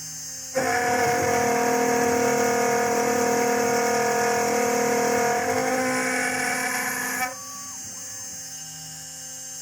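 Home-made CNC milling machine cutting aluminium: over a steady spindle hum, a loud ringing, whining cutting noise starts abruptly about half a second in and cuts off suddenly about seven seconds in, as the cutter engages and leaves the metal.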